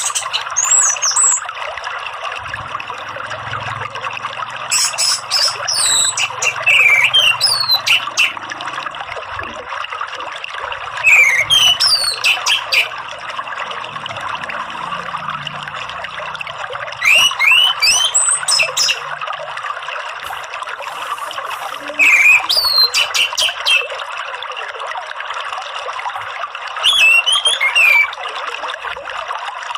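Orange-headed thrush (anis merah) song in short bursts of quick, varied whistled notes, about every five seconds, over a steady background of running water.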